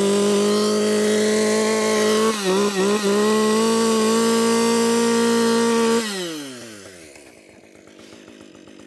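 Two-stroke chainsaw revved and held at a steady high pitch with the chain running free, dipping briefly about two and a half seconds in. This is done to warm the saw up and check whether the chain needs tensioning. About six seconds in the throttle is let off and the revs fall away.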